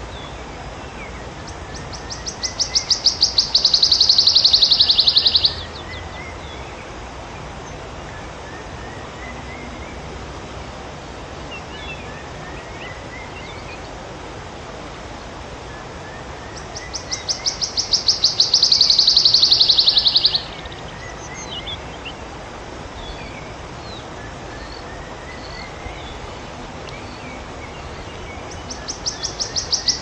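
Wood warbler singing three songs, the last starting near the end. Each song is a quickening run of high ticking notes that speeds up into a shivering trill of about two seconds, then stops abruptly. Faint short calls of other birds come in between.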